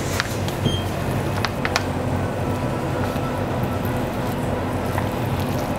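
Wooden chopsticks stirring instant noodles in a paper cup, giving a few light clicks, over a steady low electrical hum in the room.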